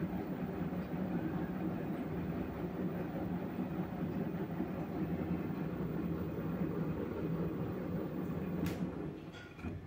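LG front-loading washing machine washing: the drum turns a load of clothes through soapy water with a steady, low rumble and sloshing. Near the end there is a sharp click and the sound dies down.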